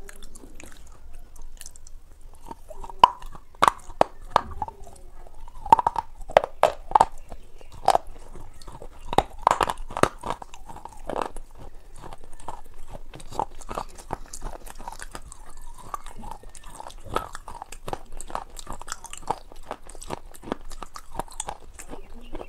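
Close-miked chewing of crunchy food, with sharp, loud crunches coming thick and fast in the first half and then settling into steadier, softer chewing.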